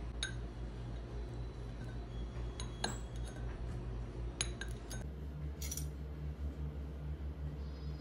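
A knife and then a spoon clinking against a ceramic bowl as they cut and scoop soft kulfi, with a few short, sharp clinks spread through the first two-thirds. A steady low hum runs beneath.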